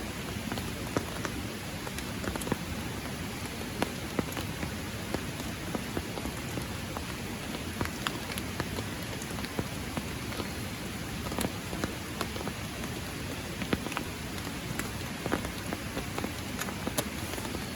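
Steady rain, with single drops landing close by as irregular sharp ticks over an even hiss.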